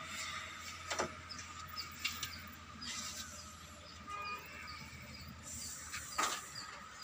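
Faint clinks and knocks of hand tools, a spanner and bar, on a truck's diesel engine under repair, with a few sharper clicks about a second, two seconds and six seconds in, over a low steady hum.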